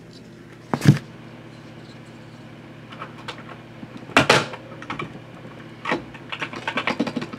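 Plastic clicks and knocks of a spacebar keycap being fitted onto a mechanical keyboard's stabilizers: one sharp click about a second in, a louder knock about four seconds in, then a run of smaller clicks. A steady hum from a loud computer fan runs underneath.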